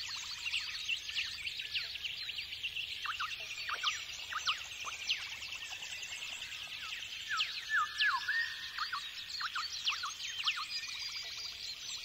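A chorus of many birds singing at once, mixing chirps, quick rattling trills and sharply falling whistles, with a few louder calls about eight seconds in.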